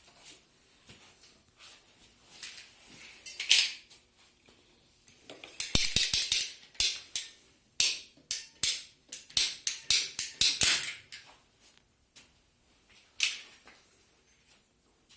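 Hand work on PVC drain pipe and fittings: a single scrape, then a run of quick rasping strokes about three a second for several seconds, and one more stroke near the end.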